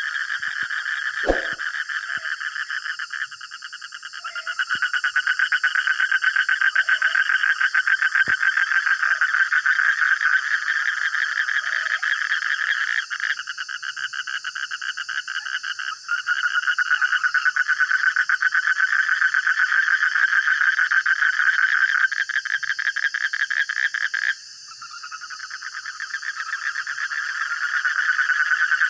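A dense chorus of frogs calling at night in fast, rapidly pulsed trills that run on without a break. The chorus thins out briefly about three seconds in and again about twenty-four seconds in, and a single sharp click comes about a second in.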